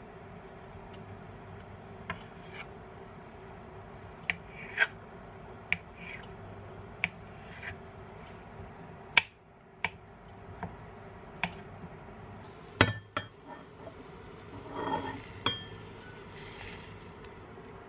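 Dishes, glassware and cutlery clinking and knocking in a kitchen: a string of scattered light clinks and taps, the loudest about 13 seconds in, with a short scraping rustle near the end. A faint steady hum runs underneath.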